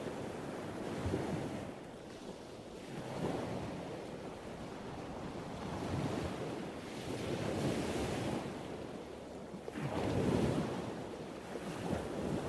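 Ocean surf: waves breaking and washing in repeated swells, the loudest surge about ten seconds in.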